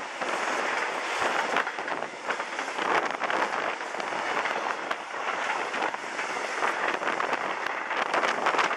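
Freight train of container and tank-container wagons passing at speed close by: a steady noise of wheels running on the rails, thick with sharp clicks and clanks.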